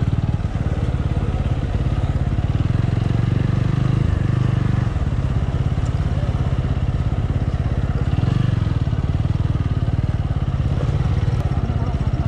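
Single-cylinder motorcycle engine running steadily as the bike is ridden slowly, its note swelling briefly twice.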